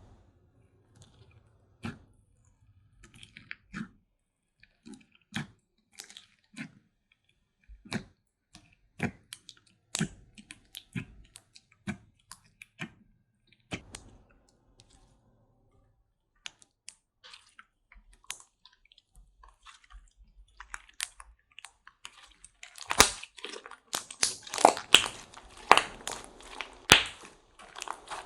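Slime being squished and pressed by hand close to the microphone. Separate wet clicks and pops of trapped air come roughly once a second, then a quieter stretch, and in the last few seconds a dense run of crackling pops.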